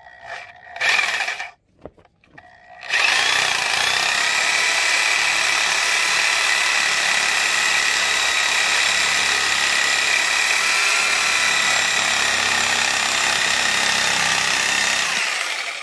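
Reciprocating saw cutting through elk ribs where they join the spine. A short burst comes about a second in, then a steady run of about twelve seconds that stops near the end.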